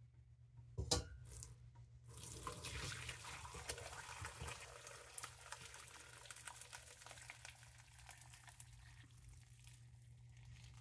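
Lichen dye bath poured from an enamel pot through a stainless mesh strainer into a pot below: a faint, steady splashing pour that starts about two seconds in and tapers off toward the end. A single knock comes about a second in.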